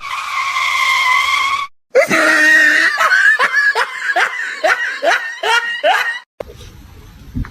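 A voice: one long high-pitched cry, then a run of short cries that fall in pitch, about three a second, like laughter, stopping about six seconds in.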